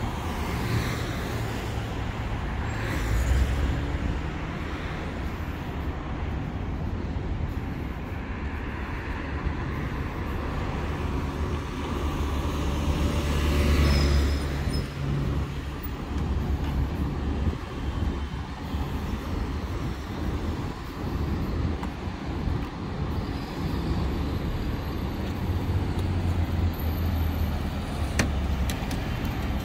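City road traffic: cars and buses passing with a continuous low rumble that swells as vehicles go by, about three seconds in and most strongly around the middle.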